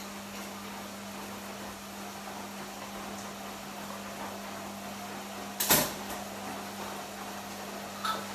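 Kitchen containers being handled at a counter: one sharp knock about five and a half seconds in, like a jar set down hard, and a lighter click near the end, over a steady low hum.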